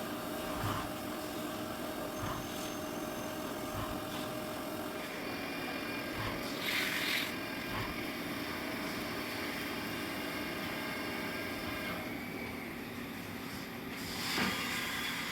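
Haas VF4 CNC vertical mill running a milling cut, a steady mechanical hum with a couple of brief hissing bursts, about seven seconds in and again near the end.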